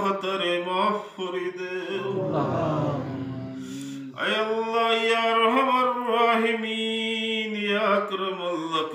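A man's voice intoning an Arabic supplication in long, drawn-out melodic notes. There is a rougher, lower stretch in the middle, and a new held phrase starts about four seconds in.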